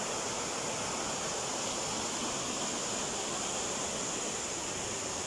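Steady rushing of flowing river water, an even hiss at a constant level with no breaks.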